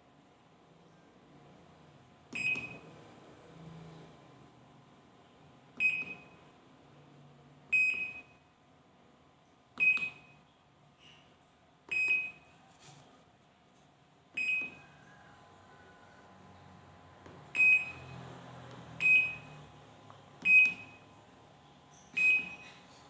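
Samsung Diamond Drum washing machine's control panel beeping about ten times at uneven intervals, one short high beep each time, as buttons are pressed to try out the newly replaced control module.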